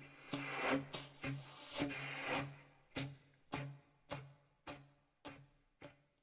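Instrumental music: the same low note struck or plucked over and over, a little under twice a second. A noisy layer sits over the first half, and the strokes grow fainter toward the end.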